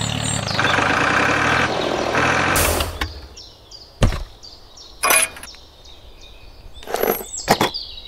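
Tractor engine sound running steadily for about two and a half seconds, then cutting off. After that come a few sharp clicks and knocks of small plastic parts as a trailer drawbar is hooked onto a toy tractor's hitch and pinned.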